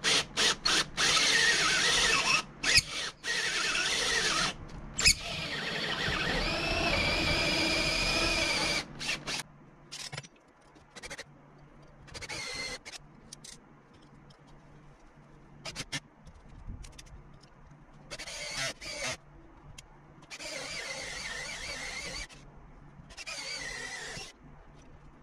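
Power drill boring a hole through a house's exterior siding and wall for a mini-split line set, running with a wavering high-pitched squeal for about nine seconds. It then stops and starts again in several shorter bursts.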